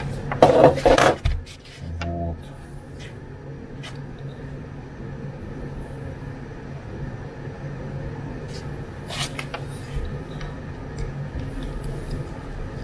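Plastic housing of an AEG 18 V cordless-tool battery pack being pulled apart and handled, with a loud clatter in the first second, then faint clicks and scrapes of a small screwdriver working the pack's screws, with one sharper click near the end. A steady low hum runs underneath.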